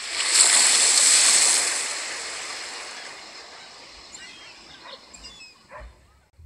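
Ocean wave washing up over sand, a sudden rush that is loudest for the first two seconds and then hisses away slowly as it recedes, played over cinema speakers.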